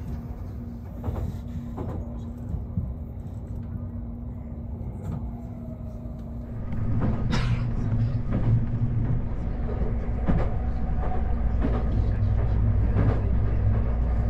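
Odakyu Romancecar GSE electric express train running, heard from inside the carriage: a steady low rumble with a steady hum and scattered clicks and knocks. It grows louder about seven seconds in.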